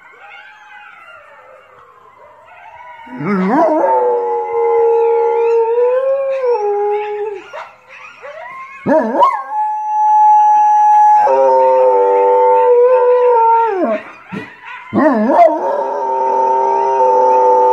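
A harlequin Great Dane howling: three long, drawn-out howls with a wavering pitch, starting about three seconds in. The first three seconds hold only a faint rising and falling wail.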